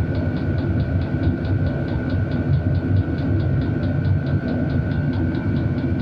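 Vevor diesel air heater running steadily: a low combustion rumble and a constant fan whine, with the fuel pump ticking evenly and rapidly, about five ticks a second.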